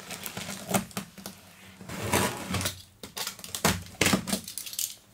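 A box cutter slitting the packing tape along the top of a cardboard box: short scraping strokes and taps on the cardboard, in a few separate bursts.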